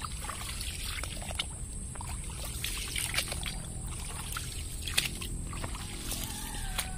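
Light water sounds and small splashes in shallow, weedy swamp water, with scattered small clicks and a faint whistling call near the end.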